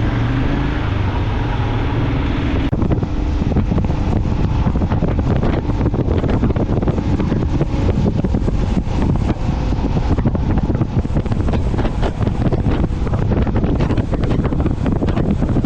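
Loud wind buffeting on the microphone over the rumble of road traffic, the buffeting growing rougher about three seconds in.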